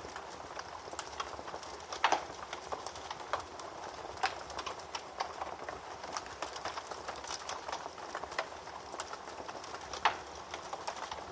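Wood fire burning in a fireplace, crackling irregularly over a soft steady hiss, with two louder pops about two seconds in and near the end.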